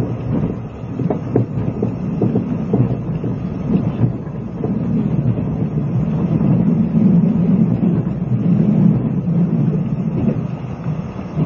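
Running noise heard inside a JNR 20-series sleeper coach: a low rumble of wheels on rail with irregular knocks in the first few seconds, then a louder, steadier drone about halfway through. Recorded on cassette tape, so the top end is dull.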